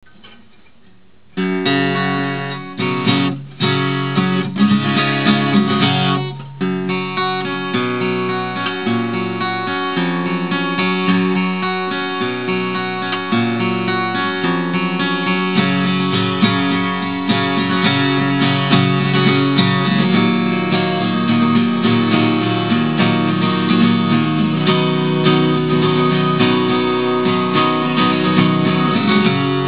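Simon & Patrick Songsmith Folk acoustic guitar (spruce top, laminated cherry back and sides) played unplugged, with lots of midrange. The playing starts about a second and a half in, pauses briefly twice in the first few seconds, then runs on steadily.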